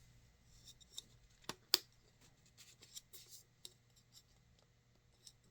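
Scattered light clicks and taps of small plastic parts being handled, the sharpest click about a second and three-quarters in.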